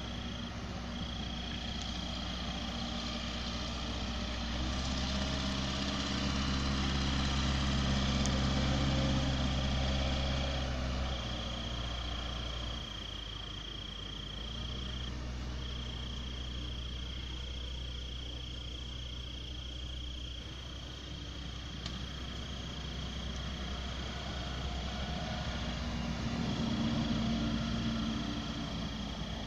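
Case 580M backhoe loader's diesel engine running, getting louder and higher twice, from about five to eleven seconds in and again near the end. An insect's steady high trill, broken by short gaps, runs above it.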